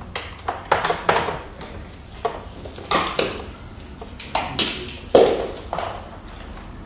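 Irregular clicks, knocks and short metallic pings of a scoop stretcher being handled and adjusted for length on the floor.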